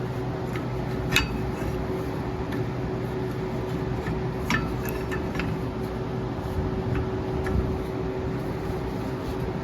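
Scattered light metallic clinks and taps as parking brake shoes and their spring hardware are handled. The sharpest comes about a second in and another cluster around four and a half seconds, over a steady background hum.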